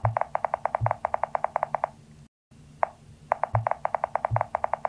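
Video intro sound effect: a quick run of bright ticks, about ten a second, with two low thumps among them, lasting about two seconds. After a short break the same pattern starts over.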